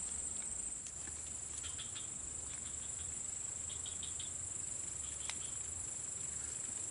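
Insect chorus: a steady high-pitched buzz, with short bursts of chirping every second or two and a couple of faint clicks.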